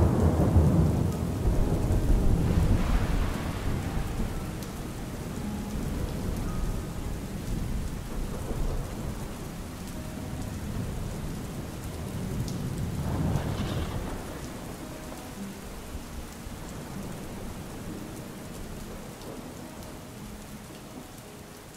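Rain falling with rolling thunder: a heavy rumble in the first few seconds and another about thirteen seconds in, the whole gradually fading out.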